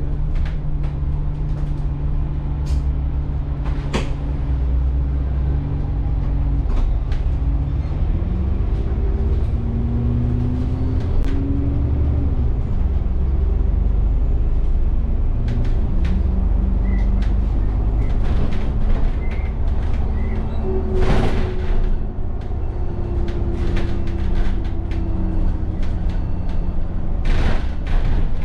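Alexander Dennis Enviro400 double-decker bus heard from inside the cabin as it drives in town: the engine drones and rises in pitch before dropping back at a gear change. Two short bursts of air hiss come about three quarters of the way through and again near the end.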